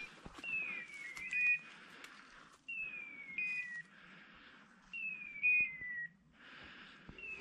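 Hunting-dog beeper collars sounding in point mode: a falling, whistle-like call repeating about every two seconds, with short steady beeps from a second collar laid over it. This signals that the setters are standing on point.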